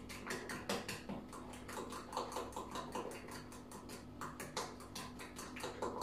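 Utensil stirring a thick protein-powder and egg batter in a bowl by hand, clicking against the bowl in quick, uneven taps about four times a second while breaking up lumps.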